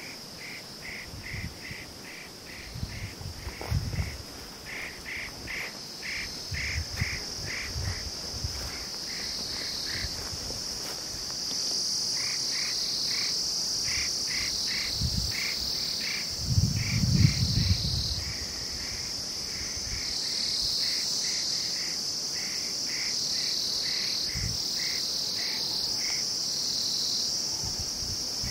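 Insects in a hillside forest: a steady high-pitched drone with a pulsed chirping over it, about three chirps a second, which stops and starts. Low rumbles come and go, loudest about 17 seconds in.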